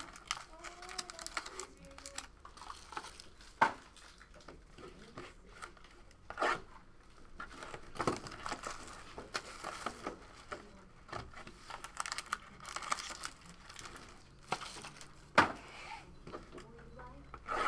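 Crinkling and tearing of card-box packaging as trading-card boxes are unwrapped and handled, with a few sharp knocks of cardboard boxes on the table, the loudest about four seconds in and near the end.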